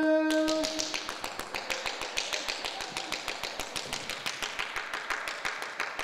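The last held note of a sung duet breaks off about half a second in. Hand clapping follows in quick, even claps, about eight a second, fading near the end.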